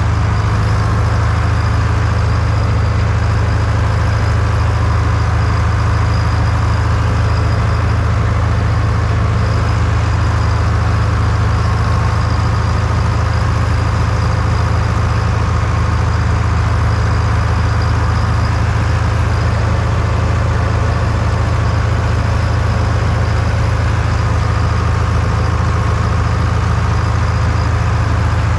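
IHC 844-S tractor's diesel engine running at a steady, even speed while it drives slowly, pulling a loader wagon through the grass.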